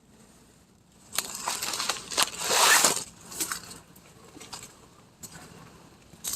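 Dry leaves and plant debris crunching and crackling. It starts about a second in, is loudest near the middle, then tails off into a few scattered cracks.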